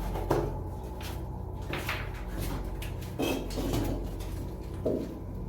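Footsteps and scuffs in the shelter tunnel: a few irregular knocks and scrapes over a steady low hum.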